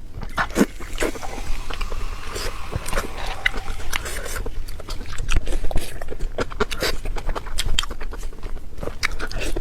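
Close-miked wet chewing and lip-smacking as a person eats pig intestine stuffed with pig brain: many quick, irregular smacks and squelches.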